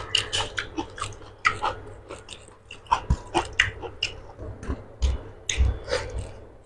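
Wet, irregular clicks and smacks of fingers kneading rice with egg curry on a steel platter, with close mouth-eating sounds near the end.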